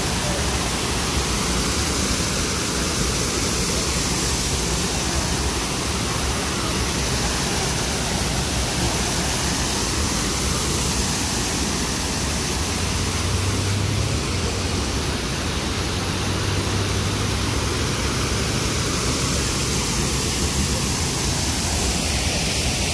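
Water pouring over a stone weir and crashing into the pool below: a steady, loud rush of falling water.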